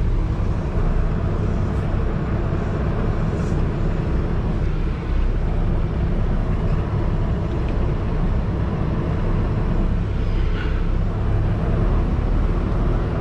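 Diesel semi-truck engine idling steadily, a constant low rumble.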